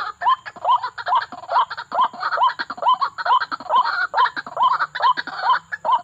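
White-breasted waterhen calling: a fast, steady series of short rising notes, a little over two a second.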